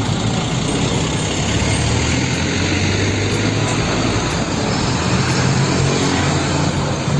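A UD Trucks heavy dump truck's diesel engine runs with a steady low drone and tyre noise as the truck drives up and past.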